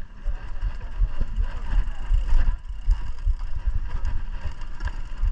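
Mountain bike rolling over rough ground, with many small rattles and knocks, and heavy wind rumble on the microphone.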